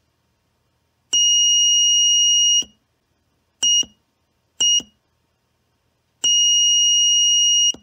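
Active buzzer on a microcontroller breadboard circuit sounding a steady high-pitched beep each time the push button is held: a long beep of about a second and a half, two short beeps a second apart, then another long beep.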